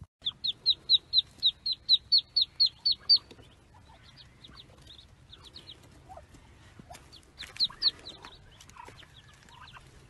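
Ducklings peeping: a rapid, even run of high-pitched peeps, about five a second, for the first three seconds, then scattered quieter peeps with a brief louder cluster later on.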